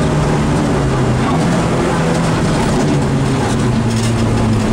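Rally car engine heard from inside the cockpit, running hard at speed with loud road and tyre noise. The engine note drops a little in the first second or so, then holds steady.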